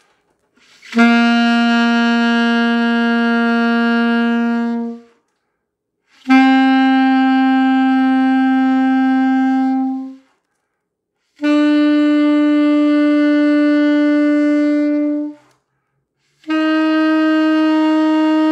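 Alto saxophone playing four long, steady notes one after another, each held about four seconds with a short breath between, each a step higher than the last: the beginner's left-hand notes G, A, B and C, blown at an even strength through each note.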